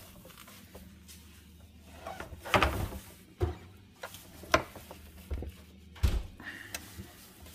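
Irregular handling knocks and thuds as a plastic snowmobile slide strip is shifted and set down against a miter saw's table and fence, with the saw not running. There are about eight separate knocks.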